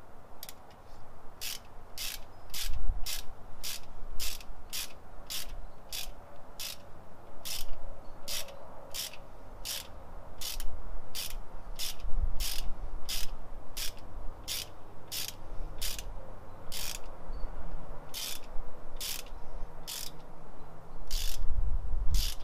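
Hand ratchet with a hex-bit socket clicking steadily, a little under two clicks a second, as ARP head studs are run down hand-tight into an LS1 engine block. A few low knocks near the end.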